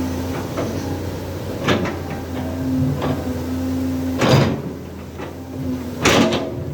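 A truck engine running steadily with a low hum, under a series of clunks and knocks, loudest about four seconds in and again about six seconds in.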